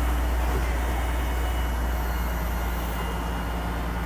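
Engine of a FEMA debris-removal truck running steadily, a low rumble that eases slightly toward the end.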